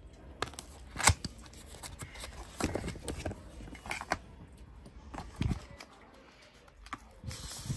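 Paper-and-cardboard watch-band packaging being handled and slid open by hand: scattered rustles and light clicks, the sharpest about a second in.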